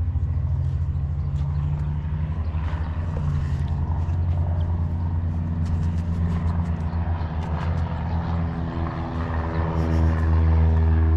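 A vehicle engine running with a steady low hum; near the end it gets louder, with a higher droning tone added.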